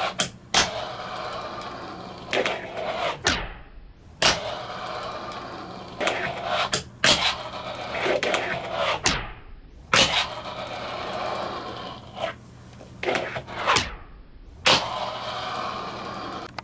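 Fingerboard wheels rolling across a desk in four runs, each run broken by sharp clicks of the tail snapping and the board landing. Each roll dies away as the board slows.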